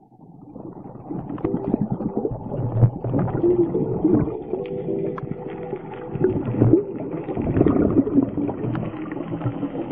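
Scuba regulator breathing and bubbling exhaust heard underwater, muffled, in irregular gurgling bursts.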